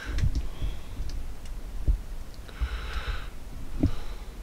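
Camera handling noise as the camera is moved and set in a new spot: low bumps and a few light clicks, with a short soft hiss about halfway through.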